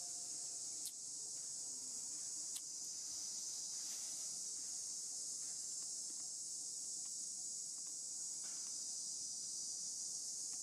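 A steady, high-pitched chorus of insects that holds level without pause, with two faint clicks in the first few seconds.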